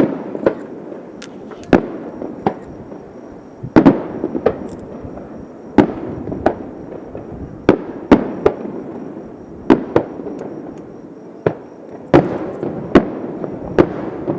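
Aerial fireworks shells bursting in a rapid, irregular series of sharp bangs, one or two a second, each trailing off in an echoing rumble.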